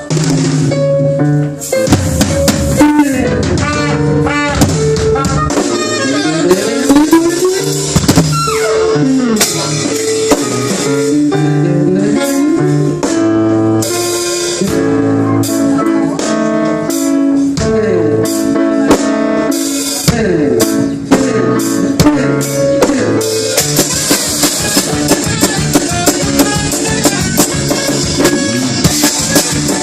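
Live rock band playing an instrumental passage: drum kit with rimshots under electric guitar with sliding, bending notes and bass. In the last several seconds the cymbals build up into a wash over quick, even drum hits.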